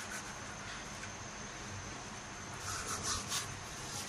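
Hands scrubbing peeled bitter gourds with salt, a steady gritty rubbing with a few louder scrubbing strokes about three seconds in; the salt rub draws out the gourds' bitterness.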